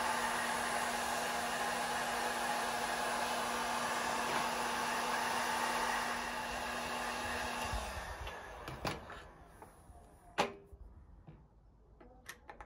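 A VonHaus electric heat gun blows steadily with a low hum, heating an aluminium pedal body to free a seized steel bolt. About eight seconds in it is switched off and dies away, and a few sharp clicks and knocks follow.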